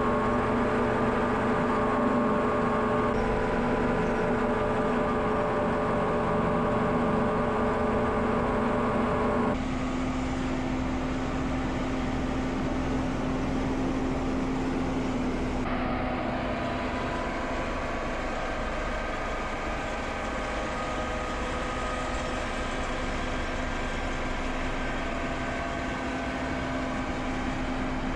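Heavy farm machinery engine running steadily at an even pitch, the sound changing abruptly about ten seconds in and again about sixteen seconds in.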